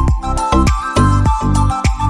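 Background music with a steady electronic beat, a deep bass and a held melody.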